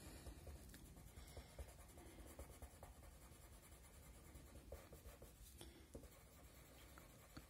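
Very faint scratching of a watercolour pencil colouring on card stock, with small irregular ticks as the lead strokes the paper.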